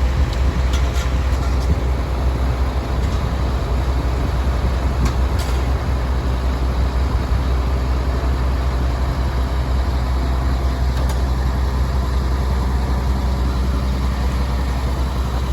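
Heavy diesel engine of a concrete pump truck running steadily under load while pumping concrete, a deep continuous hum.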